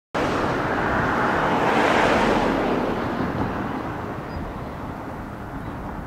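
Broad rushing noise of an unseen passing vehicle, swelling to its loudest about two seconds in and then slowly fading.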